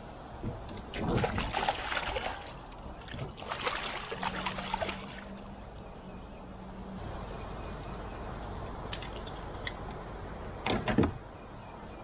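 A hooked largemouth bass splashing and thrashing at the surface as it is fought toward a kayak. There are several bouts of splashing, and the loudest comes about eleven seconds in.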